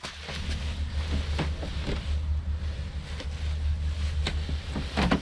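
The lever handle of a locked uPVC door being pushed and rattled by a gloved hand: several clicks and a louder rattle near the end as the door will not open. A steady low wind rumble on the microphone lies under it.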